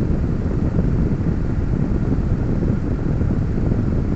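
A car's engine idling, heard from inside the cabin as a steady low rumble.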